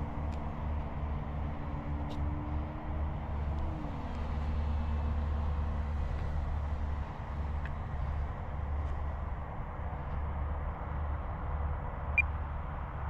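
Wind buffeting the microphone, under the faint whine of an E-flite Extra 330sc's electric motor and propeller in flight. The whine drops in pitch about four seconds in as the plane throttles back or flies away. A short tick comes near the end.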